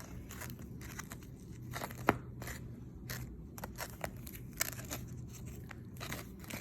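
Hands squishing and poking clear-glue slime: a string of small crackling pops and clicks, with one sharper snap about two seconds in.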